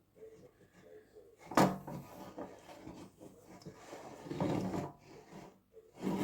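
Fingers rubbing butter around the inside of a cake pan, greasing it, with scraping and rubbing noises that swell about four seconds in. A single sharp knock about a second and a half in, as the pan or a utensil is bumped.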